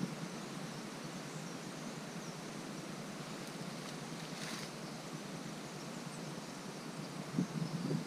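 Steady rush of flowing river water, with faint bird chirps over it. A short rustle comes about halfway, and a few low knocks come near the end.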